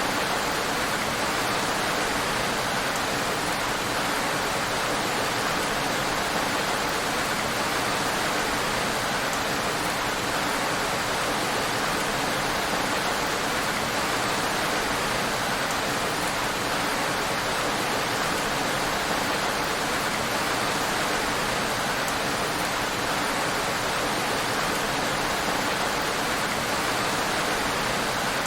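Heavy rain falling on a road: a steady, even hiss with no single drops standing out.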